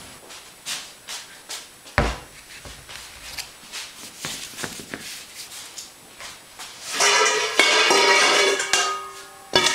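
A few light knocks and one heavy thud about two seconds in as pumpkins are set down and handled on a countertop. About seven seconds in, an instrumental song with fiddle starts, louder than the knocks.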